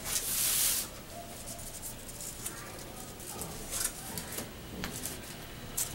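Handling noise: a loud rustle lasting under a second at the start, then scattered light clicks and short rustles.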